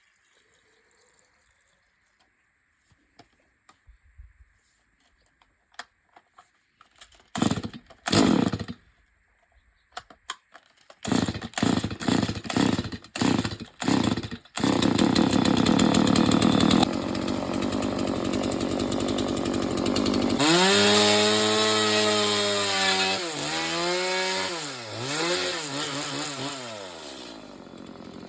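Stihl MS 180 two-stroke chainsaw being pull-started: a series of short pulls and bursts, then the engine catches about halfway through and runs at high revs. Near the end the engine note dips and recovers twice before fading.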